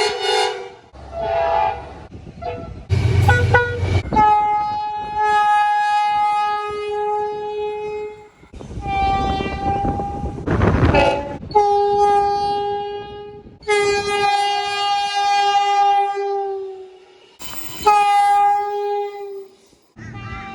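Locomotive air horns sounding a series of long blasts, each a steady chord of several tones, one blast giving way abruptly to the next. About halfway through, a stretch of rushing rail noise from a train rolling by takes over briefly.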